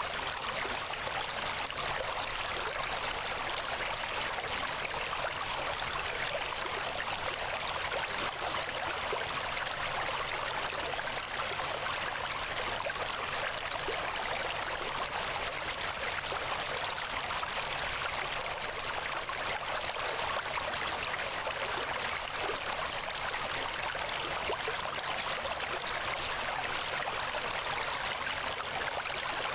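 Steady rushing sound like a flowing stream, even and unbroken, with little low rumble.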